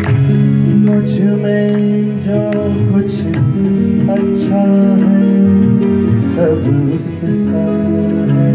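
Harmonium playing held chords, with drum strokes keeping a steady beat: an instrumental passage of a Gujarati Jain devotional song (stavan) performed live.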